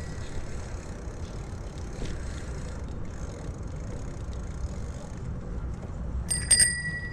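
Steady rumble of wind and tyre noise from a bicycle in motion, with a bicycle bell struck twice near the end, its ring hanging on.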